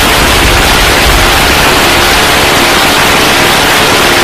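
Loud, steady rushing noise of a jet aircraft flying aerobatics, harsh and distorted.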